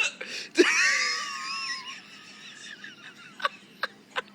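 A man's bizarre hiccup let out as a loud, high-pitched squealing cry about half a second in, rising and then holding for about a second before fading. Three short sharp clicks follow near the end.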